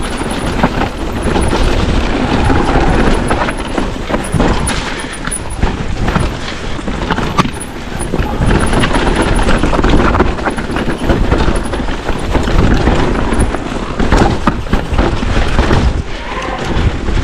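Mountain bike descending a rough, rooty trail: continuous wind buffeting on the microphone and tyres rumbling over dirt, with frequent knocks and rattles from the bike hitting roots and bumps.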